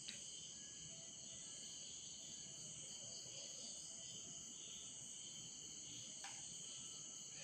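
Faint steady chirring of crickets, a high-pitched insect chorus, with two faint clicks near the start and about six seconds in.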